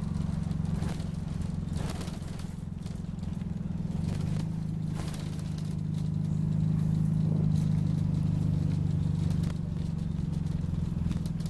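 Optare Solo bus engine running while under way, its low drone growing louder for a few seconds midway and then easing off, with scattered rattles and clicks.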